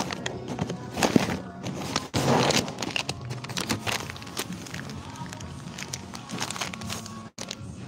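Background music playing in a room, with rustling and sharp knocks from a handheld phone being moved about.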